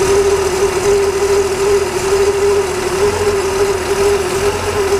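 1965 Ford truck's inline engine idling steadily, with a strong droning note held the whole time over a low rumble.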